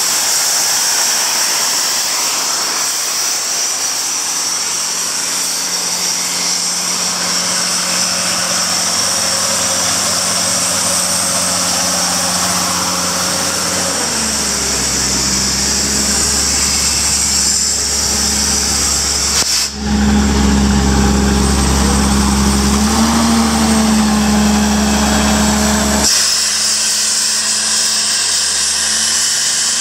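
Sullair 900H portable diesel air compressor running steadily: a strong high-pitched rushing noise over the engine's drone. The low engine hum grows louder about halfway through, with a brief dip, then eases a few seconds before the end.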